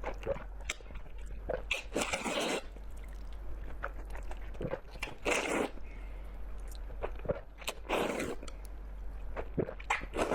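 Close-miked eating: biting and chewing, with three louder crunching bites about two and a half seconds apart and small chewing clicks between them.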